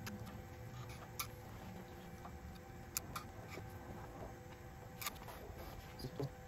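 Scattered light metallic clicks and taps from a T-handle hex driver and hand handling at a CNC router's mount during tramming adjustment, with three sharper clicks about a second, three and five seconds in. A faint steady hum lies underneath.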